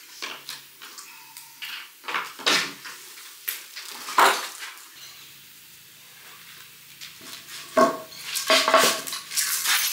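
Hand tools and metal parts clinking and clattering as they are picked up and set down. It is an irregular string of sharp clanks, and several near the end carry a short metallic ring.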